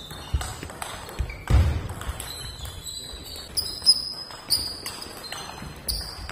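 Table tennis balls clicking off bats and the table in a series of sharp, irregular hits, with the echo of a large sports hall and one heavier thump about one and a half seconds in.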